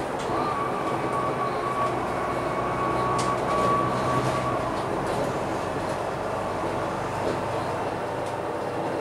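Volvo B9TL double-decker bus's diesel engine and drivetrain running under way, heard from inside the lower deck. A steady high whine sits over the engine for the first half and fades out about five seconds in.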